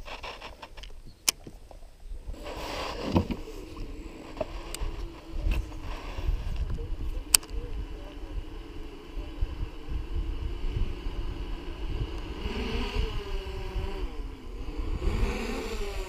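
A small boat motor starts running about two and a half seconds in and keeps up a steady buzzing hum; its pitch wavers up and down near the end. A few sharp clicks and knocks from handling fishing tackle come before it.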